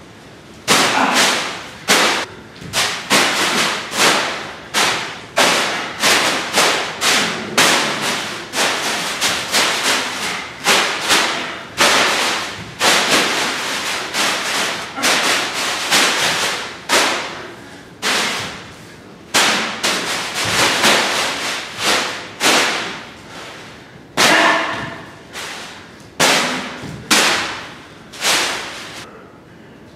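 A large clear plastic bag whipped and flung through the air, each swing a sudden sharp swish of the plastic. The swishes come in a quick irregular series, about one or two a second, and stop near the end.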